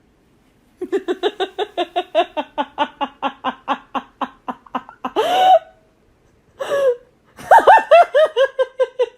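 A person laughing: a long run of quick, even "ha" pulses, about five a second and fading, then a short rising cry and a second burst of laughter near the end.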